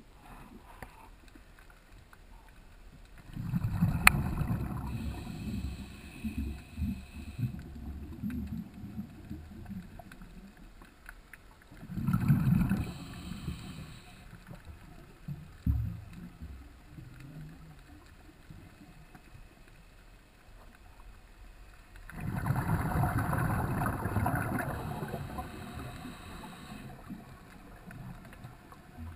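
Heard underwater: a diver's exhaled bubbles rumbling and gurgling past the camera in three bursts, a few seconds in, about twelve seconds in and about twenty-two seconds in, over a low steady background hum.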